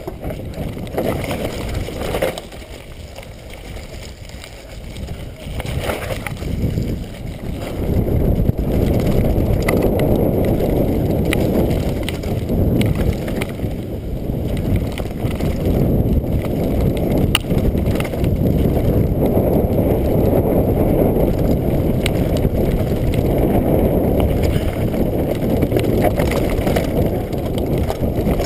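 Wind buffeting a GoPro's microphone and mountain-bike tyres rolling fast over a dirt downhill trail, a steady low rushing with a few sharp clicks from the bike. It is quieter for a few seconds near the start and louder from about eight seconds in.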